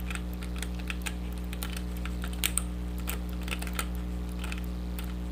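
Irregular small clicks and ticks of a lock pick working the pins of a pinned challenge lock under tension, over a steady low hum.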